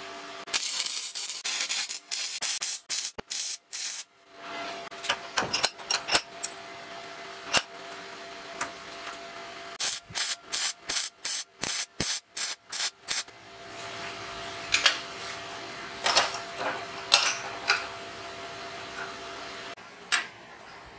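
MIG welder arc crackling in a series of short welds and tacks, stopping and starting, over the steady hum of the welding machine.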